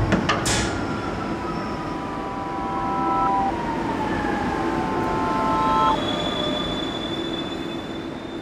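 Metro train running: several steady high squealing tones and a whine that falls in pitch over a steady rumble, with a higher steady tone joining about six seconds in. The sound fades toward the end.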